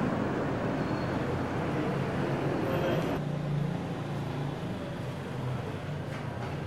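Outdoor traffic and street noise, a steady rumbling hiss. About three seconds in it cuts abruptly to a quieter background with a low hum.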